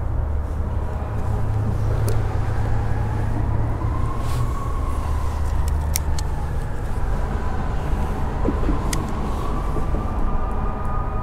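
Road traffic: a steady low rumble with a faint whine that swells and fades twice. A few sharp clicks sound over it.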